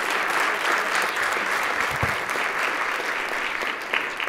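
A roomful of people applauding, a steady round of clapping.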